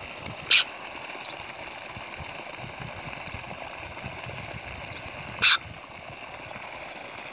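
Two short, bright zings about five seconds apart from a baitcasting reel's drag giving line as a hooked pirarara catfish pulls, over a steady background hiss.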